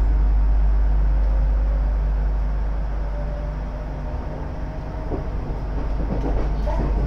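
Electric commuter train, a converted ex-Tokyu car, pulling away from a station, heard from inside the carriage: a steady low rumble with a faint motor tone that dips a little partway through and builds again as it gathers speed.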